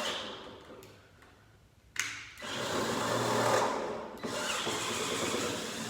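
Tool work on screws in the plastic body of a Razor ride-on quad: a sharp click about two seconds in, then a few seconds of whirring, rattling mechanical noise.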